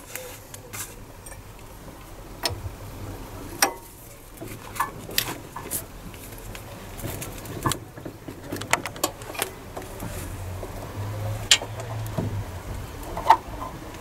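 Scattered metallic clicks and clinks as a spanner fits onto the Citroen ZX front brake caliper's bolts and turns them in to tighten them, with a few sharper knocks, over a faint low hum.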